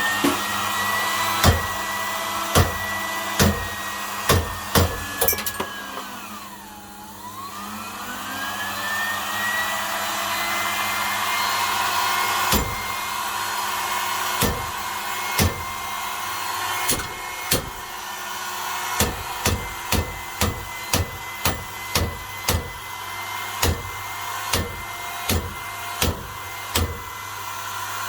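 Sewing machine motor overdriven on 400 V, spinning with a high whine over a mains hum. The whine dips sharply in pitch about seven seconds in, then winds back up. Sharp irregular clicks or knocks run through it and come faster in the second half.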